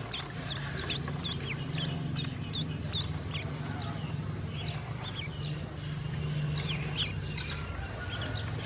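Ducklings peeping: a stream of short, high peeps, several a second, over a steady low hum.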